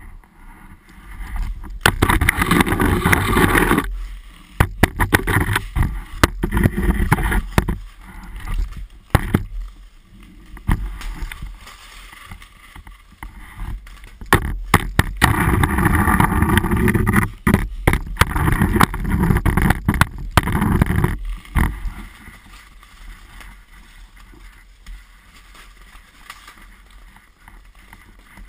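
Hockey stick blade and skates scraping and knocking over rough ice, heard through a camera mounted on the stick. There are loud stretches about two to four seconds in and from about fifteen to twenty-one seconds in, with many sharp knocks, and it is much quieter for the last several seconds.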